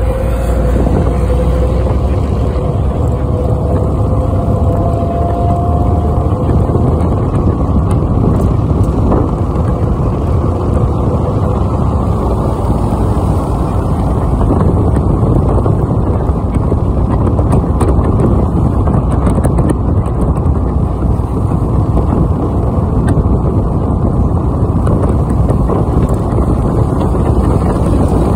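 Steady road and wind noise of a moving vehicle, heard from inside it, with a faint whine rising in pitch over the first few seconds.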